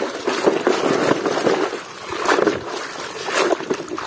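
Muddy water sloshing and splashing in a plastic basin as a hand scrubs a toy truck under the surface, in irregular swishes.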